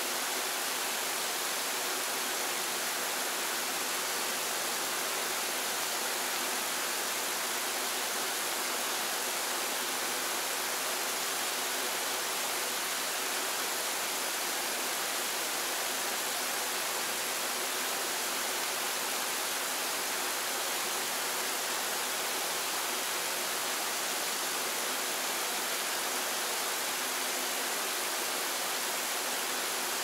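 A waterfall's steady rush of falling water, even and hissy, with little deep rumble.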